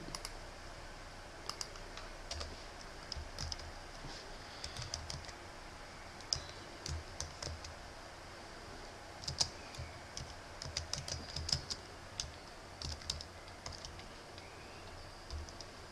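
Typing on a computer keyboard: keystrokes come in short, irregular bursts with pauses between them.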